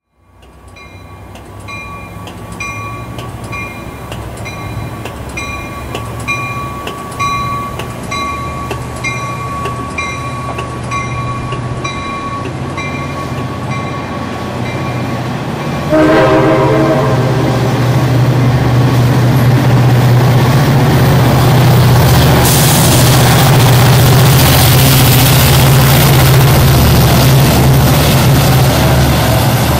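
Railroad grade-crossing bell ringing steadily, about a stroke and a half a second, as an Amtrak California push-pull train rolls through the street-running station. About 16 s in a train horn sounds loudly. The rest is the loud rumble of the passing train and its F59PHI-type diesel locomotive.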